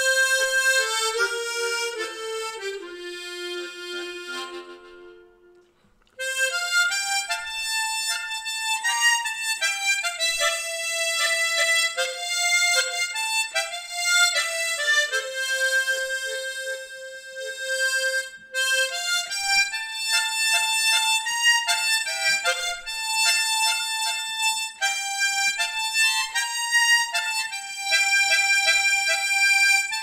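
Solo harmonica playing a slow song melody in F, with no accompaniment. One phrase falls and fades out about five seconds in, and after a short break the melody picks up again.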